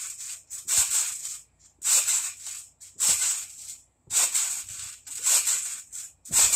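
Backyard trampoline's coil springs and mat creaking and rustling with each bounce, about one short burst a second in a steady rhythm.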